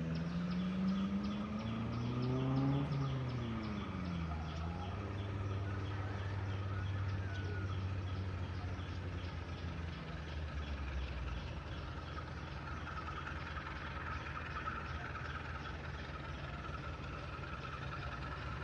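An engine's pitch rises over about three seconds, drops back, then settles into a steady low hum that fades out about eleven seconds in.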